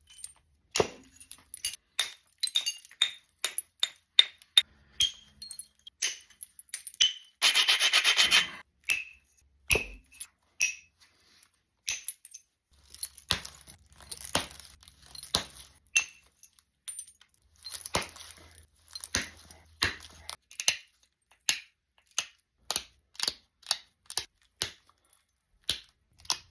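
Georgetown flint being knapped: a long run of sharp clicks and clinks as flakes come off the stone, with a short stretch of scraping about eight seconds in.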